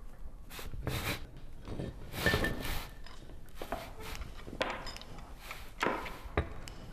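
Foley sound effects: a run of scuffs, rustles and knocks, with several short swishing sweeps and a sharp knock near the end.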